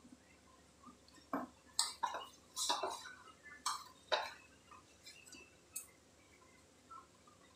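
Hand kneading crumbly semolina dough in a stainless-steel plate: a run of short, sharp clinks and scrapes against the steel, about eight of them, most in the first half.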